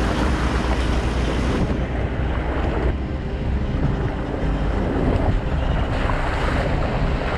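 Wind buffeting the microphone over the steady low rumble of a moving vehicle, changing abruptly a few times.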